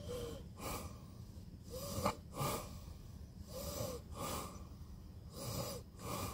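A man breathing close to the microphone: four soft in-and-out breaths, about two seconds apart.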